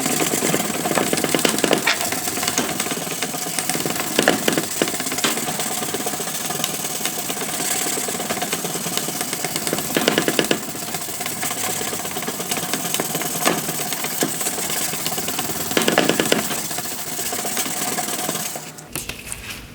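Turtle Wax headlight restorer sanding pad wet-sanding a plastic headlight lens by hand, with lubricant sprayed on, in repeated left-to-right strokes. It is a continuous rasping rub that stops near the end.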